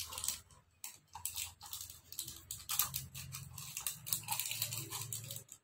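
Scratchy rustling, crinkling and small clicks of hands handling a sachet of powdered mango drink mix and emptying it into a glass.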